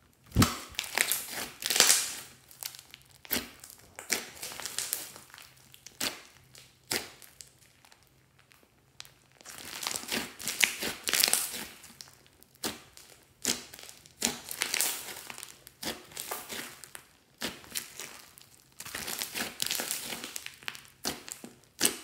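Hands kneading and pressing a fluffy slime mixed with small foam beads: squishy crackling and popping as trapped air bursts and the beads crunch, in repeated waves with short pauses between presses.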